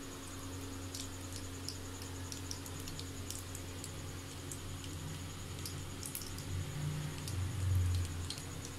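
Sparse faint crackles and ticks of cumin seeds frying in hot oil for a tadka, over a steady low hum. A brief louder low rumble comes near the end.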